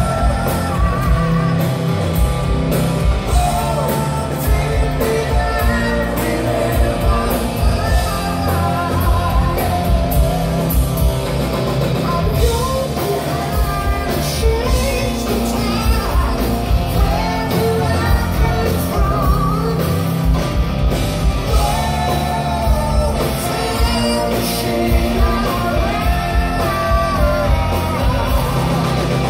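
Live rock trio playing: a lead singer over distorted electric guitar, electric bass and a drum kit, heard from the audience in a hall.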